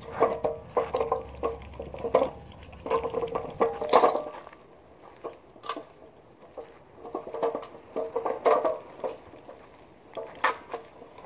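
A 30-inch magnetic sweeper rolled on its plastic wheels over a muddy dirt driveway. It rattles and clatters in bursts of about a second as it is pushed and pulled, with sharp metallic clinks in between: the clink of metal debris snapping against the aluminum bottom plate.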